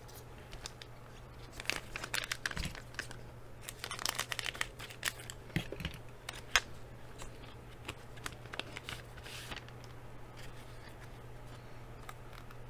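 A trading-card pack wrapper being torn open and crinkled in bursts of crackling, with one sharp click about six seconds in, then fainter rustling as the card is handled.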